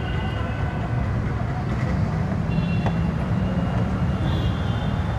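Steady low rumble of background noise, with faint brief high tones now and then and a few light ticks.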